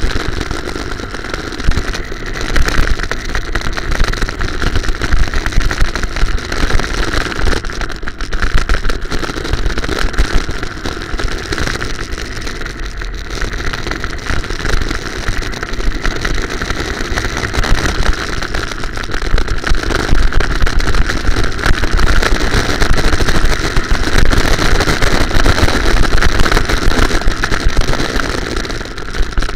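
Go-kart driving at speed, its motor running continuously, heard from a camera mounted on the kart with heavy rumble underneath. The sound swells and dips, growing louder near the end.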